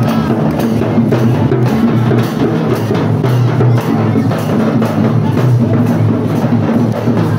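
Loud music driven by drums and percussion beating a rhythm, over steady low sustained tones.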